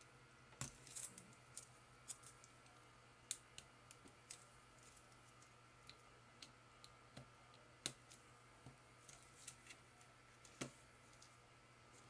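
Faint, scattered small clicks and ticks of plastic parts being handled as a USB cable's plug is fitted into its board connector inside a computer mouse, over a quiet steady hum.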